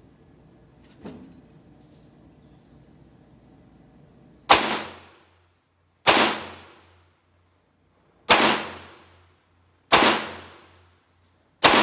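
Colt Match Target .22 LR semi-automatic pistol firing five single shots about two seconds apart, each sharp crack trailing off in a short echo. A faint click comes about a second in, before the first shot.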